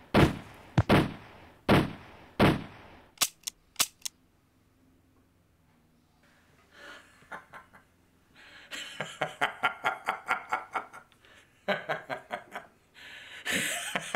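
A rapid volley of pistol shots, about five loud shots in the first three seconds followed by four lighter cracks. After a few seconds of near silence, a person laughs in rhythmic bursts from about nine seconds in.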